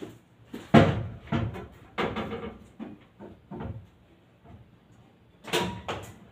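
Irregular knocks and clunks of a breaker panel door and switch being handled, the loudest about a second in and another cluster near the end.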